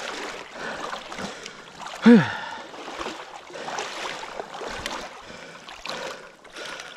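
Marsh water sloshing and swishing around a hunter's legs as he wades toward a downed duck. About two seconds in there is one short, loud voice-like sound that falls in pitch.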